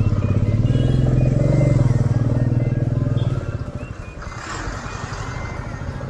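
Royal Enfield Meteor 350's single-cylinder engine running at low speed in stop-and-go traffic, louder for the first three seconds or so and then easing off.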